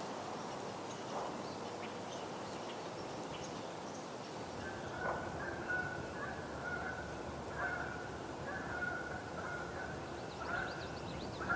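Outdoor wetland ambience with wind noise on the microphone. Faint high bird chirps are scattered through it, and from about a third of the way in an animal repeats a short call at one steady pitch, several times.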